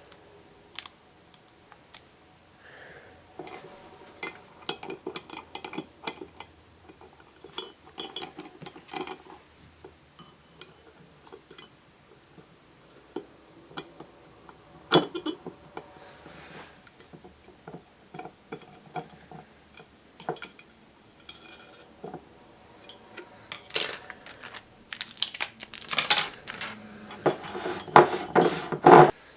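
Plastic Rubik's Cube pieces clicking and clinking against a glass jar as they are handled and fitted together inside it. Scattered sharp clicks, growing busier and louder in the last few seconds.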